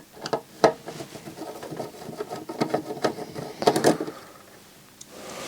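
Screws being undone from the side of a small hi-fi unit's casing with a screwdriver: irregular small clicks and rattles, with a brief cluster of louder ones about a second in and again near four seconds.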